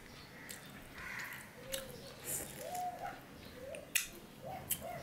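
Wet squishing and clicking of a hand squeezing a lime half into a steel plate of moong dal, with a sharp click about four seconds in. A few short chirps sound over it in the second half.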